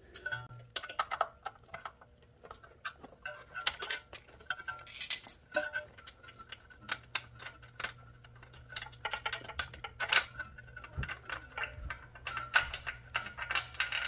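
Tube-type spark plug wrench and its tommy bar clinking against the small engine as the spark plug is worked loose and unscrewed: a run of irregular light metal clicks and clinks.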